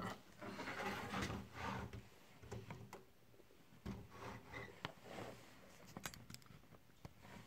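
Faint handling noises of a plastic Lego Technic car model being moved about: intermittent scraping and rustling with a few sharp plastic clicks.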